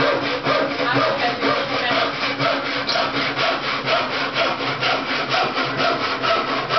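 Handsaw cutting through a wooden board with quick, even back-and-forth strokes.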